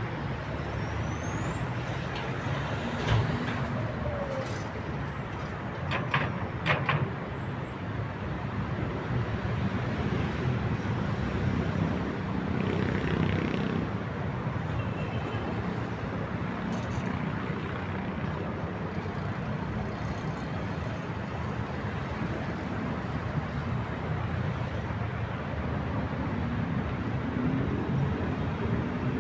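Steady city traffic din with heavy vehicles such as buses and trucks rumbling. A faint high rising squeal comes in the first few seconds, and a few sharp knocks come about three seconds in and again around six to seven seconds.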